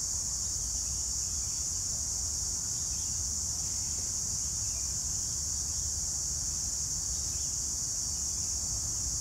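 A steady, high-pitched drone of insects chirring in the park's trees, over a low background rumble.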